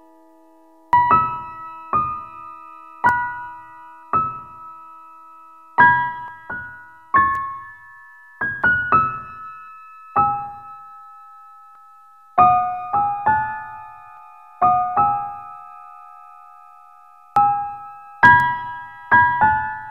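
Background piano music: slow, sparse notes and chords, each struck and left to ring away, with short pauses between phrases.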